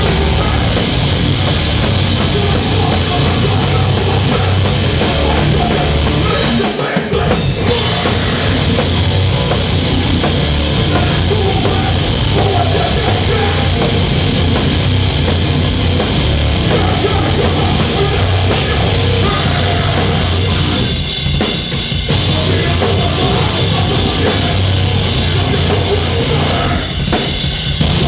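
Live punk rock band playing loud: distorted electric guitars and a pounding drum kit, with vocals. The band drops out for a moment about seven seconds in.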